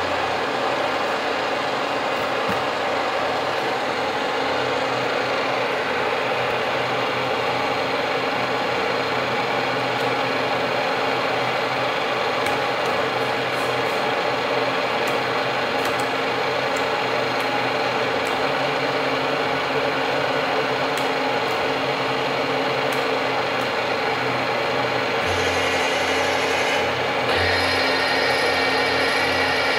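KNUTH KBF 50 drilling-milling machine running: a steady motor hum with gear whine. About 25 seconds in a higher whine and a deeper hum join, as another drive is switched on.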